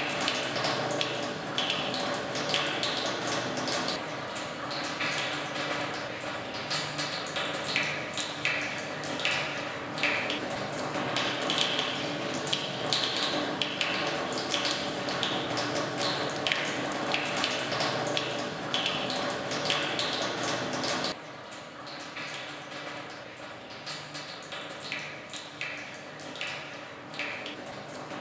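Wet sucking and gurgling of a vampire drinking blood from a bite wound in the neck: a run of short liquid squelches over a steady low drone, dropping a step quieter about three-quarters of the way through.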